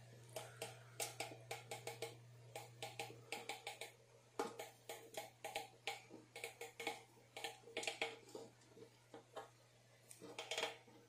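Hand wrench working bolts on a plastic fender: quick runs of sharp ratchet clicks and small metal tool knocks.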